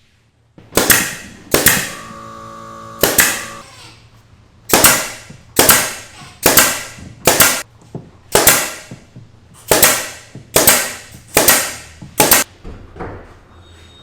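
About a dozen sharp, loud cracks, one roughly every second, each with a short ringing tail, as wooden cabinet parts are fastened together. A brief steady hum sounds after the second crack.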